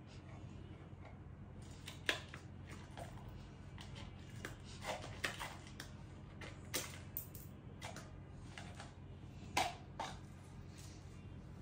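Small dry pellets rattling and clicking in a clear plastic cup and dropping onto a tile floor as a toddler scoops and handles them: irregular clicks, loudest about two seconds in and again near the end.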